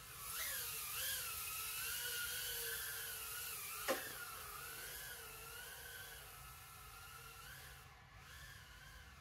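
Happymodel Mobula 6 tiny whoop quadcopter in flight: its motors and propellers give a whine that wavers up and down in pitch as the throttle changes, loudest in the first half and fading toward the end. A single sharp knock about four seconds in.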